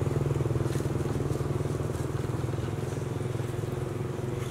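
Motorcycle engine running with a steady, fast throb, slowly getting quieter.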